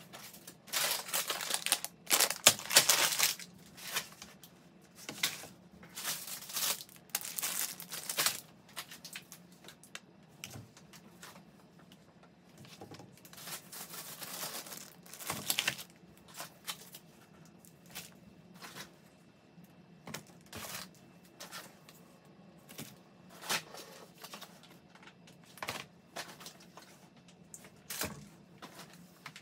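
Intermittent rustling and crinkling, with scattered short clicks and light knocks, as things are handled.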